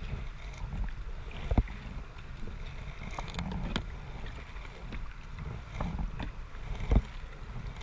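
Kayak out on a river: water and wind rumbling on the microphone, broken by a few sharp knocks, the two loudest about one and a half and seven seconds in.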